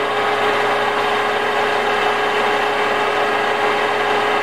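Craftex B2227L metal lathe running in reverse at its slowest speed, an even hum with a steady tone, as it backs a 1/4-20 tap out of a freshly tapped hole.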